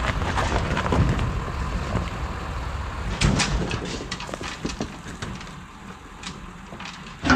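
Excavator running while it loads logs into a dump truck, with scattered knocks and clatter of wood. The noise eases off in the last couple of seconds, then a loud hit comes right at the end.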